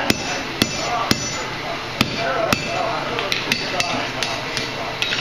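Hand hammer striking red-hot square steel stock on an anvil to cut off its end: five heavy, evenly spaced blows in the first two and a half seconds, then a run of lighter, quicker taps.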